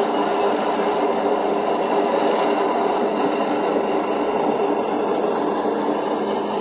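G-scale LGB Cargo Sprinter model train running along brass track: a steady rumble of its wheels on the rails and its motor and gear drive.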